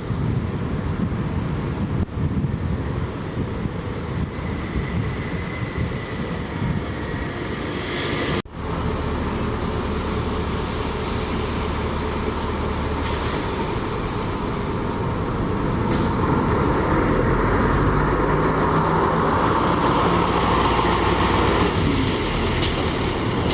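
Railway and road traffic noise: a train's rumble in the first several seconds, then, after an abrupt cut, a heavy vehicle's engine running steadily and growing louder for the last several seconds.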